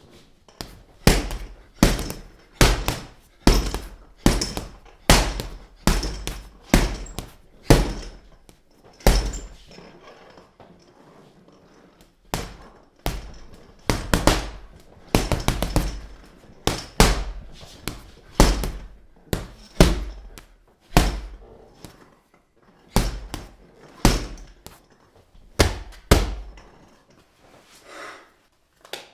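Long series of punch sound effects: sharp, heavy hits about once or twice a second, each with a short decay. They pause for about two seconds near the middle and come in a quick flurry a little after.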